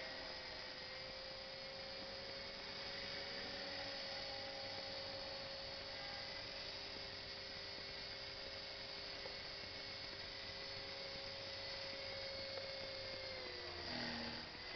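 Align T-Rex 450 SE electric RC helicopter in flight: a steady whine from its motor and rotor head, dipping in pitch shortly before the end. A brief bump near the end.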